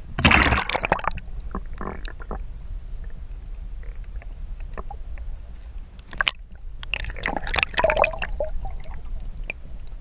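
Water splashing and gurgling over an action camera's microphone as the camera is dipped into shallow seawater and held at and below the surface, over a steady low underwater rumble. Loud splashes come at the start, around two seconds in, and again about seven to eight seconds in, with a sharp click in between.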